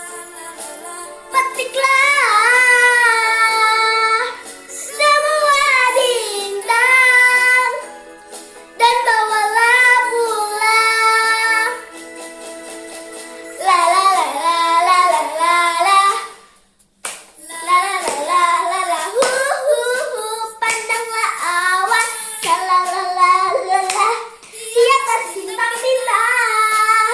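A young girl singing in a high voice with music behind her, breaking off briefly about two-thirds of the way through.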